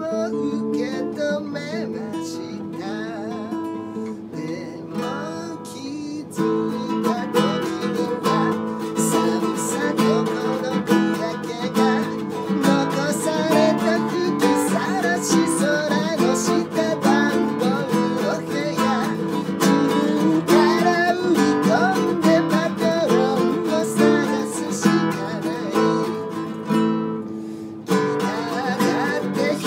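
A man sings a Japanese song, accompanying himself on a strummed nylon-string classical guitar. The playing is light for the first six seconds or so, then turns to fuller, steady strumming, easing off briefly just before the end.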